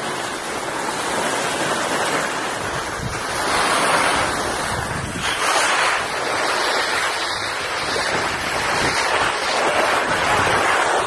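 Wind rushing over the microphone of a camera carried by a moving skier, mixed with the hiss of skis sliding over packed snow. The rush swells and eases several times.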